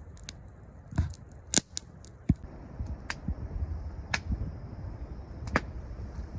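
Campfire crackling: a string of sharp, irregular pops over a faint low rumble.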